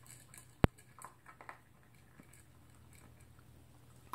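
Toy poodle eating breakfast from a bowl: a few soft crunches and clicks, with one sharp, loud click under a second in. The eating sounds fade after about two seconds.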